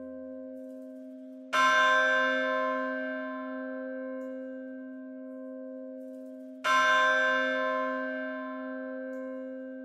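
Church bell tolling: two strokes about five seconds apart, each ringing on and slowly dying away, with the hum of an earlier stroke still sounding under them.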